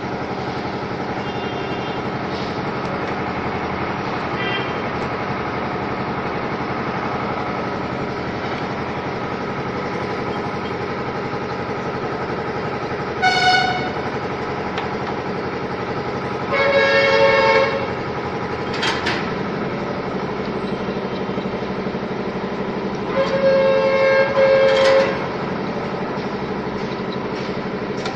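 A steady mechanical hum, broken by three horn honks: a short one about halfway through, then two longer ones a few seconds apart.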